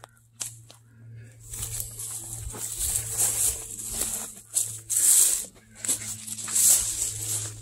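Dry leaves and brush rustling and crunching in irregular bursts, as someone moves through undergrowth, over a steady low hum.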